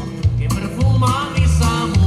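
Music playing, with a bass line stepping between notes and a gliding melody line above it.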